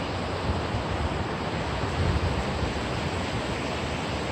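Steady rushing of a fast-flowing river current, with a low wind rumble on the microphone.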